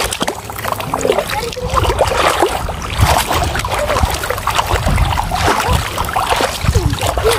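Several people wading through shallow sea water, their legs sloshing and splashing with each step in an uneven run of water noise.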